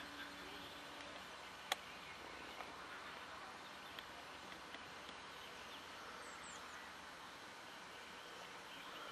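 Faint outdoor ambience of distant birds chirping, with one sharp click a little under two seconds in.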